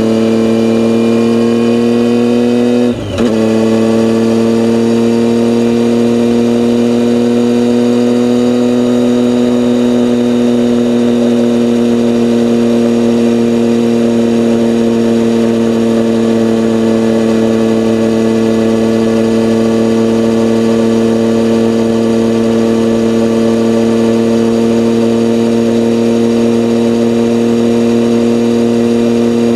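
A motor vehicle's engine running at fairly constant revs, its pitch holding steady with a brief dip about three seconds in.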